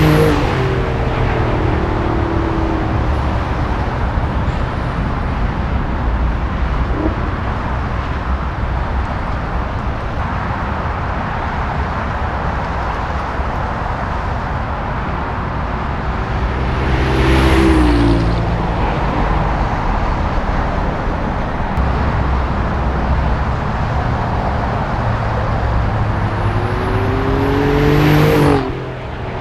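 Alfa Romeo Giulia Quadrifoglio's twin-turbo V6, fitted with an X-pipe and with its exhaust valves held open, driving past three times: its engine note swells and then drops in pitch with each pass, over a steady background of road noise.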